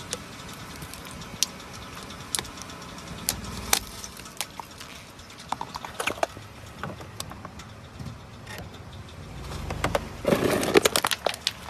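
A car tyre rolling over and crushing crunchy objects. Scattered sharp cracks and snaps come first, then a dense burst of crunching and crackling about ten seconds in, over a low rumble.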